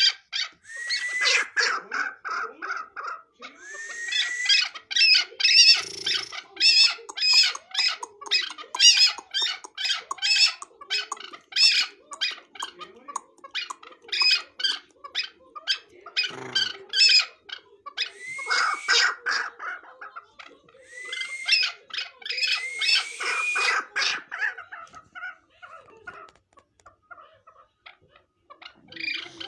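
Chukar partridge calling: long bouts of rapid, repeated sharp notes, with short lulls between the bouts.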